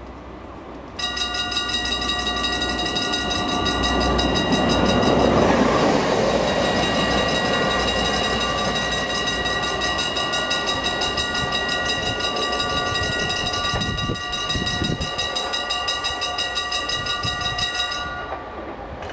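A railway level crossing warning bell ringing in a rapid, even pulse, starting suddenly about a second in and cutting off near the end, over the rumble of an approaching MaK 6400 diesel locomotive.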